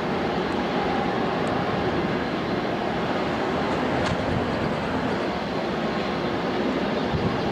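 Steady noise of airliner jet engines at an airport, running evenly throughout.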